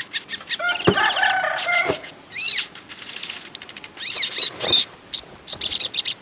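Sogon songbird singing: a busy run of sharp high chirps, quick up-and-down whistled sweeps and a rattling trill about a second in. It is lively full song of the kind played as a lure to set other sogon birds singing.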